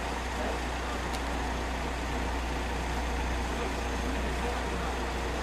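Steady low rumble with a hiss over it, with a faint click about a second in.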